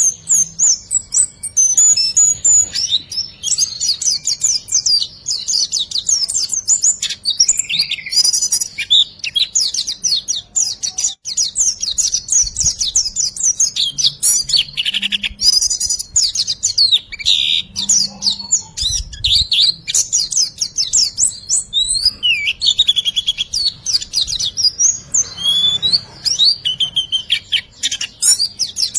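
Riwik bird song played as a masteran training track: a fast, continuous stream of high chirps and short rattling trills, phrases repeating with barely a pause.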